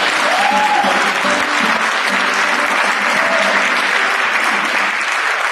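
Audience applauding: a large crowd clapping steadily and densely.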